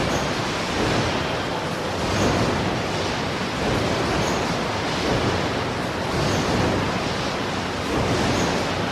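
Car assembly plant ambience: a dense, steady wash of factory machinery noise, with a faint hiss recurring about every two seconds.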